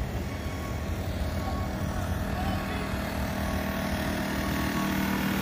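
A motor running steadily: a low rumble with a steady hum.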